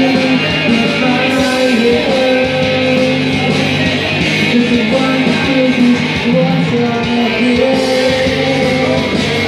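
Karaoke machine playing a rock backing track with guitar, a singing voice holding long notes over it.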